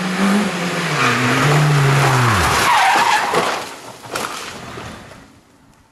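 Rally car engine running, its pitch falling steeply away about two seconds in as the car slides with tyres skidding, followed by several hard knocks as it crashes into the steel roadside guardrail.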